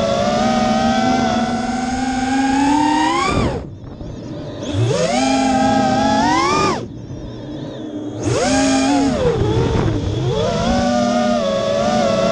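FPV freestyle quadcopter's Emax 2205 2300 kV brushless motors and tri-blade props whining, heard through the onboard camera. The pitch climbs with throttle, falls away twice as the throttle is chopped, and each time punches back up, ending in a steady whine.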